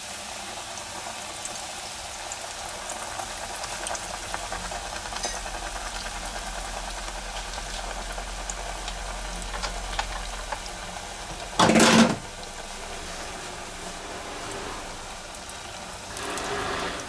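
Battered food deep-frying in a pot of hot oil near 180 °C: a steady sizzle and bubbling with small crackles. About twelve seconds in, a brief loud noise cuts across it.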